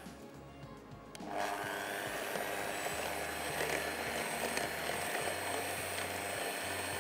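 Electric hand mixer switched on about a second in and running steadily, beating sugar into melted butter and chocolate to break down the sugar grains.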